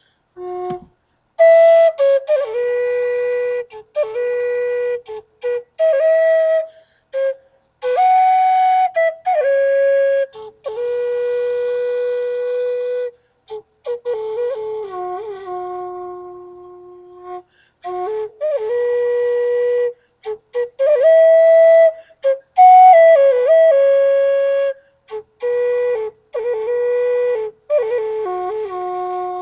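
Solo flute playing a slow melody of held notes in short phrases, separated by brief pauses, with a few notes sliding in pitch.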